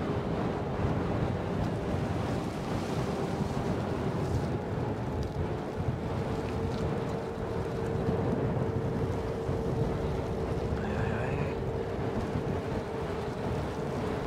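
Wind rushing over the action camera's microphone while riding an electric unicycle, with the unicycle's motor giving a steady whine that grows a little stronger about six seconds in.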